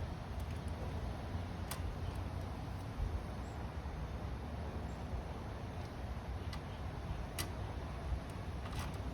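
A few scattered sharp metallic clicks from a ratchet and socket working the exhaust mounting bolts, over a steady low rumble.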